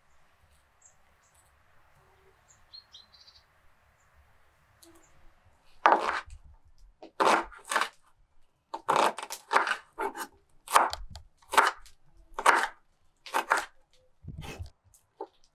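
Kitchen knife cutting through a raw onion and hitting a wooden cutting board: about a dozen crisp cuts at a slow, uneven pace of roughly one a second, starting about six seconds in after a faint steady hiss.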